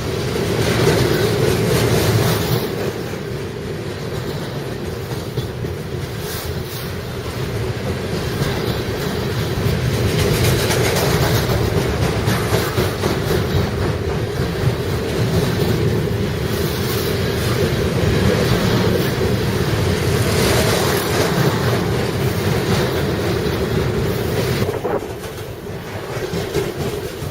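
Freight train rolling past: a steady rumble of wheels on rail that swells and eases as the cars go by.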